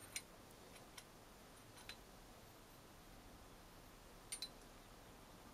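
Faint clicks and taps of small metal telescope-focuser bracket parts handled by hand as the arm is worked loose, with a quick double click about four seconds in; otherwise near silence.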